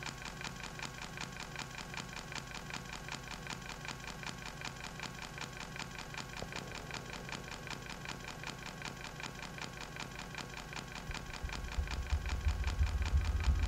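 Electronic music played on hardware synthesizers and drum machines: a fast, even clicking pulse, about five a second, over steady tones. A loud, deep bass tone comes in near the end and the music swells.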